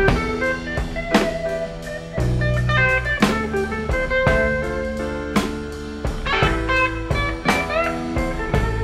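Blues-rock band playing an instrumental passage: lead guitar notes, some of them bent upward near the end, over bass and drum kit.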